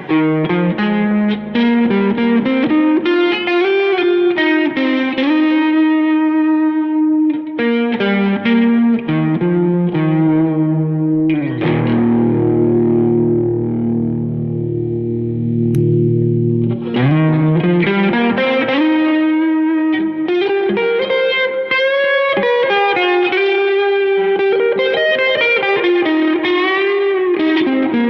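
Fender Stratocaster electric guitar played through an MXR Phase 95 phaser pedal into an Egnater Tweaker amp, playing lead lines with string bends, with a chord held for several seconds about halfway through.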